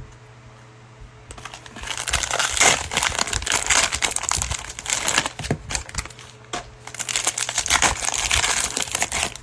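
Crinkly plastic wrapper of a 2021 Panini Mosaic football cello pack of trading cards being crinkled and torn open by hand. The crackling starts about a second in and goes on with a short lull near the middle.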